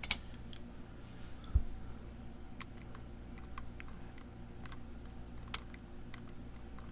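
Lock pick and tension wrench working in a challenge lock's keyway: scattered small, sharp metallic clicks and ticks. There is a single dull thump about one and a half seconds in.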